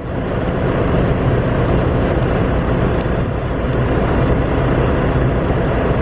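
Heavy diesel trucks idling: a steady low engine rumble with a thin steady hum above it, and two faint clicks about three seconds in.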